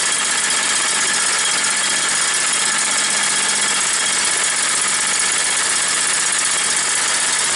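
Kohler engine on a Rayco stump grinder running steadily, freshly restarted after its carburetor was cleaned. Raw gas is still sitting in the muffler, which the owner hopes will blow out.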